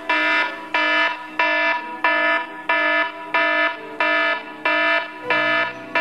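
Smartphone alarm beeping loudly and repeatedly, about one and a half beeps a second, and stopping near the end. It is the phone being set off by the Raspberry Pi weight-sensor cookie alarm, the sign that a cookie has been taken off the platter.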